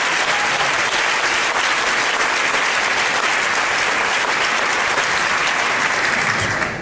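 Audience applauding, with steady clapping that dies away near the end.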